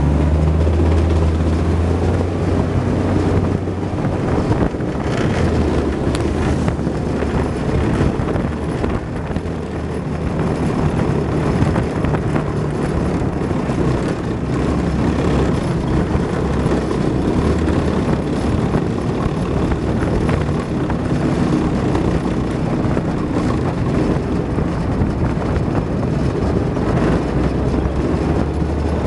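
Tracked armoured personnel carrier's diesel engine running under load as it drives over rough ground, a steady low drone with rumbling noise. The engine note is strongest in the first few seconds and swells again near the end.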